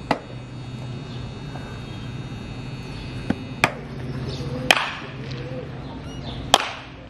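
Sharp cracks of a baseball bat hitting balls in batting practice, about five in all, the loudest about a second after the middle and near the end, each ringing off briefly. A steady low hum runs underneath.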